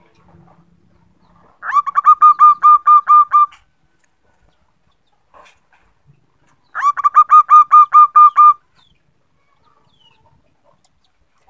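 Zebra dove (perkutut) calling: two fast runs of about a dozen short, clipped cooing notes each, the second starting about five seconds after the first. It is the female's call that draws a male to answer.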